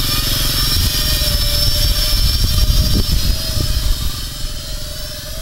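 Small quadcopter's four brushless motors and propellers whining steadily in flight, over a rough low rumble. The sound eases off in the last second or so as the drone draws away.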